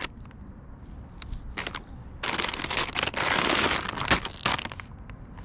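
Glossy plastic retail bags of glow sticks and glow headbands crinkling as they are handled, with scattered crackles and a longer stretch of rustling about two seconds in.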